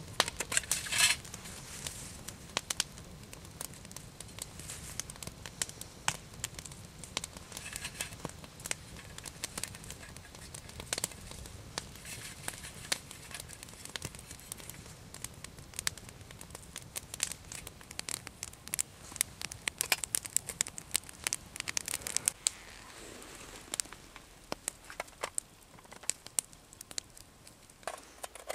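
Dry split wood being scraped and shredded into fine tinder: an irregular run of scratchy crackles and tearing sounds, loudest about a second in and busiest a little past the middle.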